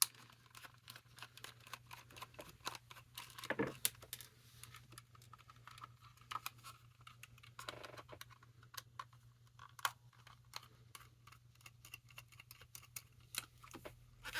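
Irregular small clicks and taps of hard plastic parts and hand tools being handled while a Furby is taken apart, with a louder knock about three and a half seconds in, over a faint steady low hum.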